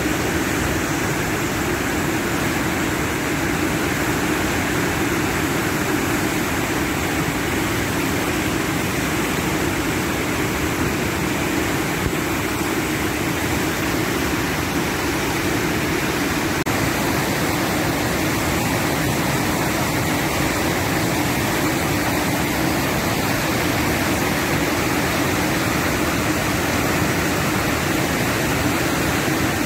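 River waterfall in high winter flow: whitewater rushing through a rocky gorge in a loud, steady, unbroken rush.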